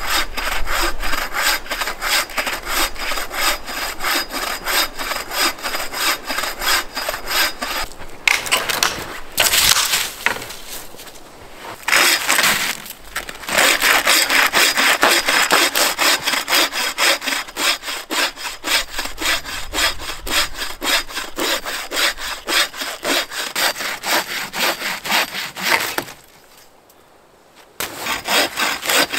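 Bow saw cutting through a fallen log: quick, rhythmic back-and-forth rasping strokes, in several bouts with short pauses, stopping for a couple of seconds near the end before starting again.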